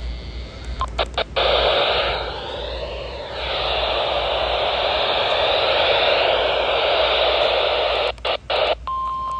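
Weather radio receiver hissing with loud static, dropping out briefly a couple of times. Near the end a steady 1050 Hz NOAA Weather Radio alert tone starts: the weekly test alarm.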